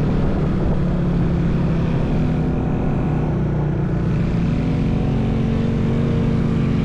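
A vehicle's engine running steadily under way, its pitch stepping up a little about four and a half seconds in.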